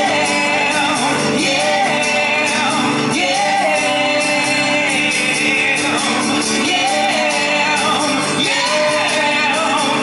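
Live song: two male singers singing together into microphones over an acoustic guitar and band, amplified through the PA, with shouted high notes.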